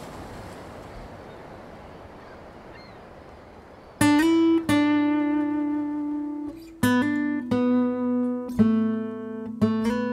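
A soft wash of beach surf fades for the first few seconds. Then a short acoustic guitar outro comes in: about six single picked notes, each ringing out before the next.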